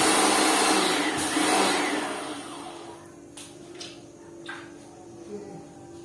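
Lakoni Laguna 70 electric pressure washer spraying: a loud hissing rush that fades out about two to three seconds in. A low steady hum and a few light clicks are left after it.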